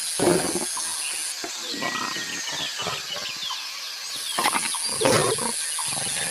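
Lion growling in a few short, rough bursts, the loudest just after the start and about five seconds in.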